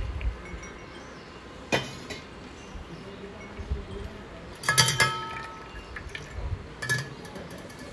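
Stainless steel mesh strainer clinking against the steel bowl beneath it as it is handled: three sharp metallic knocks, the loudest one in the middle ringing briefly.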